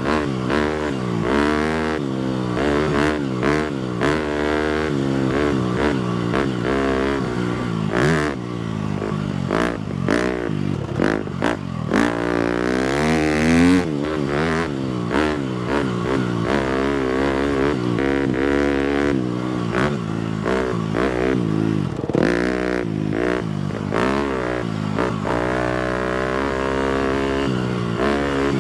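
250cc four-stroke single-cylinder motocross bike being ridden off-road, the engine revving up and falling back over and over as the throttle opens and closes. Frequent short knocks and clatter can be heard along the way.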